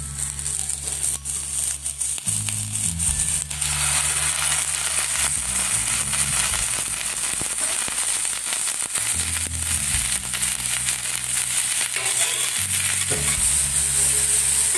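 Cauliflower florets sizzling and crackling in hot oil in a stainless steel frying pan as they shallow-fry; the sizzle gets louder a few seconds in as more florets go into the pan. Soft background music with low notes runs underneath.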